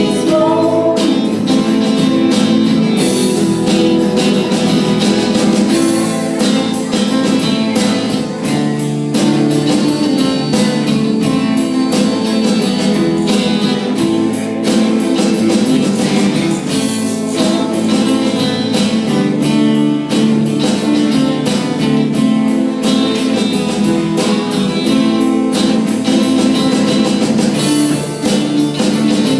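Live band music with guitars playing and a steady beat, an instrumental passage of an original rock song.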